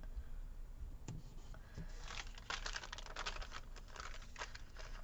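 Paper rustling and crinkling as sticker sheets are handled and stickers peeled and pressed down, with small ticks and taps. It gets busier about two seconds in.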